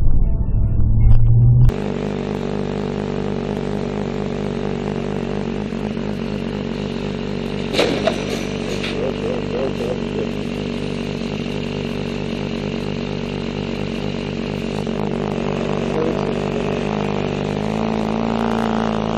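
Motorcycle engine running steadily at low revs, heard from the rider's seat, then revving up near the end. A brief sharper sound cuts in about eight seconds in. The first two seconds hold a loud low rumble from a car's dashcam.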